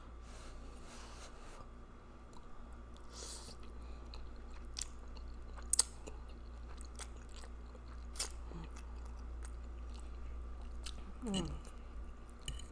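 Close-miked eating of spaghetti with meat sauce: wet chewing and slurping of noodles, with scattered sharp mouth clicks. A short pitched vocal sound comes near the end.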